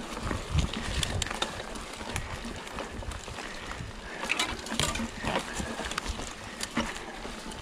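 Mountain bike rolling down a rough dirt singletrack: tyres on dirt and leaf litter, with irregular clicks, knocks and rattles from the bike jolting over bumps, and low thumps.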